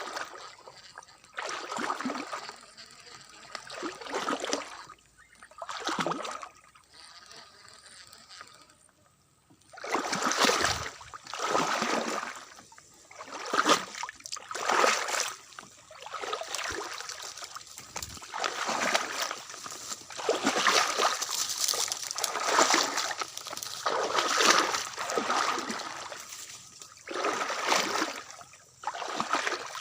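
Floodwater splashing and sloshing in irregular bursts about a second long, over a steady thin tone.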